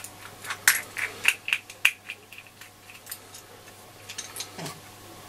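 Small hard clicks and taps from an old-style mains plug being handled and opened to get at its fuse. The clicks are irregular, about a dozen in the first three seconds, then fewer and fainter.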